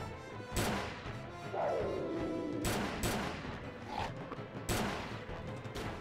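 Film action soundtrack: a handful of sharp gunshots and crashes, the loudest about half a second in and near five seconds, over a dramatic music score, with a long sweeping cry that falls and rises again around two seconds in.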